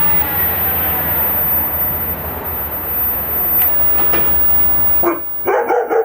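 A delivery truck's engine running close by, a steady noise that cuts off abruptly about five seconds in. A dog then starts barking near the end.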